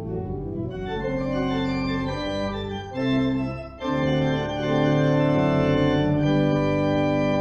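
Organ playing slow sustained chords, with a brief break about four seconds in before a fuller held chord.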